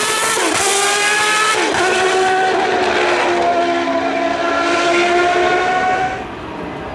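Formula One car's Mugen-Honda V10 running at high revs, its pitch dipping sharply twice in the first two seconds, as on downshifts, then holding and climbing gently. The sound drops away about six seconds in as the car passes out of range.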